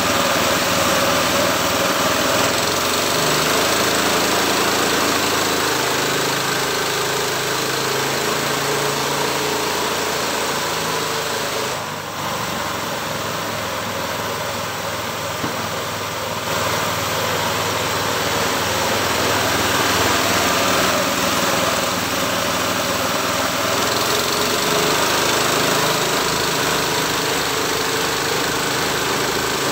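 Homemade sawmill's engine running steadily, dipping slightly in level about twelve seconds in and picking up again about four seconds later.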